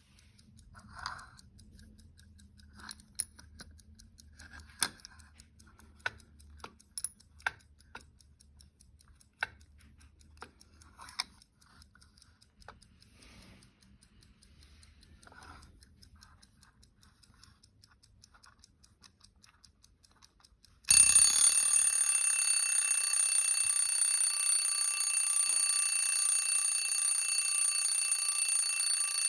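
Soviet 'Slava' mechanical alarm clock ticking quietly, with a scattering of sharp clicks and knocks. About 21 seconds in, its bell alarm goes off: a loud, continuous metallic ringing that carries on unbroken.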